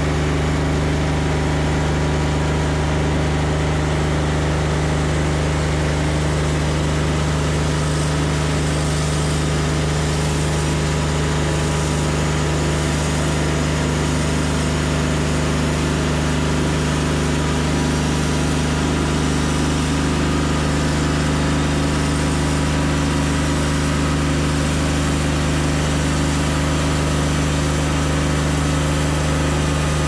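Wood-Mizer LT40 Wide band sawmill running steadily as its engine-driven sawhead travels along a timber, with a constant engine hum under the hiss of the band blade.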